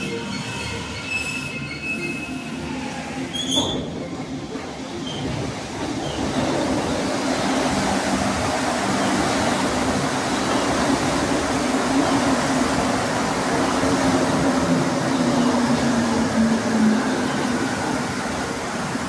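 Rubber-tyred metro train arriving at the station: faint squealing tones as it approaches, a sharp click about three and a half seconds in, then from about six seconds a louder rumble as it runs alongside the platform, with a hum that falls in pitch as the train slows.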